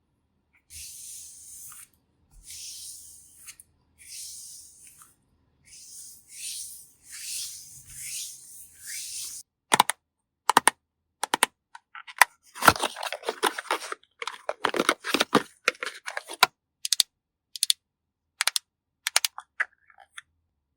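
About seven soft swishing strokes, like a makeup brush sweeping across a surface, followed about ten seconds in by a run of sharp clicks and crackly taps from handling makeup items.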